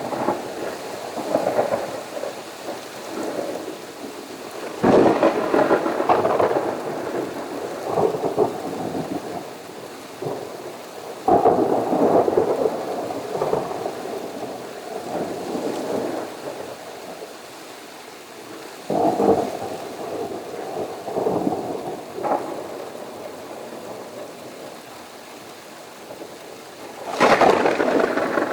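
Thunder during a thunderstorm, with steady rain throughout. Four sharp claps come about 5, 11, 19 and 27 seconds in, each rolling off over several seconds.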